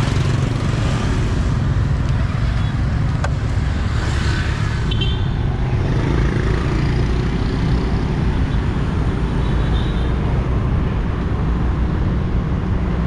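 Steady street-traffic and road noise heard while riding along city streets, with a strong continuous deep rumble.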